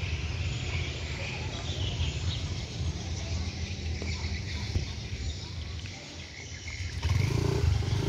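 Outdoor street ambience: a steady low rumble with faint high chirping of birds or insects. About seven seconds in, a louder low hum with steady tones comes in.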